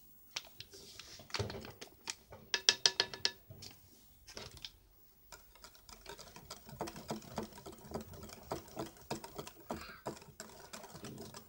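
Wire balloon whisk beating a thin cake batter in a glass bowl by hand: quick, irregular clicking and tapping of the wires against the glass. About two and a half seconds in, a burst of faster, evenly spaced taps sets the bowl briefly ringing.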